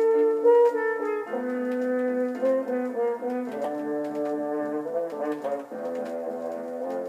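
Brass section, horn-like, playing loud held chords that change every second or so, from a vinyl record with faint surface clicks; the music cuts off suddenly at the end.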